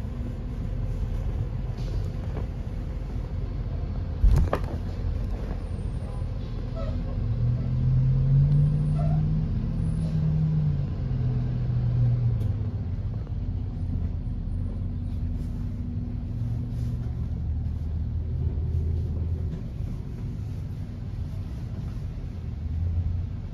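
School buses running and pulling away close past a car, a low engine rumble heard from inside the car, with an engine tone that climbs and then falls away from about seven to twelve seconds in. A single sharp knock about four seconds in is the loudest sound.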